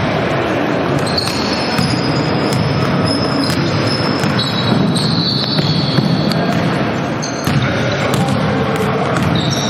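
Basketball game in play on a wooden gym floor: the ball bouncing as it is dribbled, with the players running on the court, echoing in a large sports hall.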